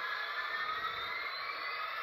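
HO scale model train running along the track: a steady hiss and rattle of motor and wheels, with a faint whine slowly rising in pitch.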